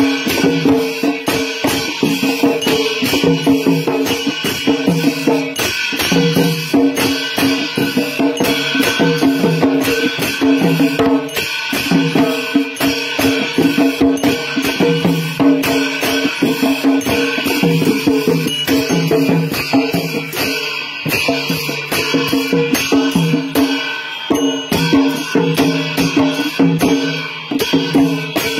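Live traditional Newar percussion accompanying a Lakhe dance: drums beaten in a fast, driving rhythm with a constant shimmer of clashing cymbals.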